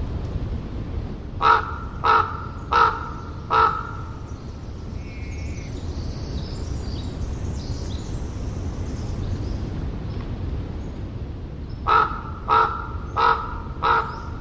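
Common raven calling in two series of four harsh calls, each series about two seconds long, over a steady low rumble of distant ocean surf. Faint small-bird chirps come between the two series.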